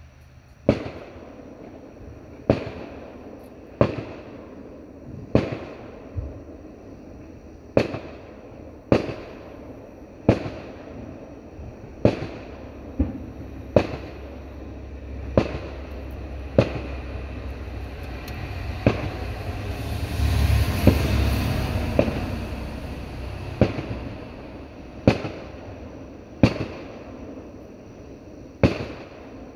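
Fireworks going off in a steady series, about twenty sharp bangs a second or two apart, each with a short echoing tail. About twenty seconds in, a rushing noise swells up and fades back.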